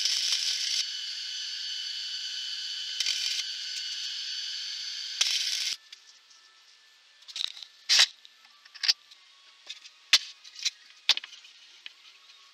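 Electric arc welding: a steady crackling hiss that runs for about six seconds and then stops. After it come a few sharp metallic clicks and knocks as metal parts are handled.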